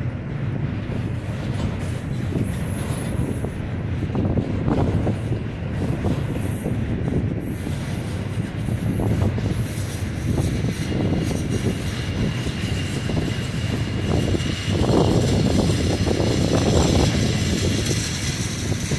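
Double-stack intermodal freight train rolling past: a steady rumble of steel wheels on rail, with a faint thin wheel squeal in the second half.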